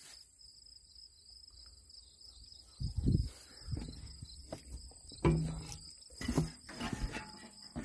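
Insects trilling steadily in high tones, joined from about three seconds in by several low rumbling thumps that are the loudest sounds.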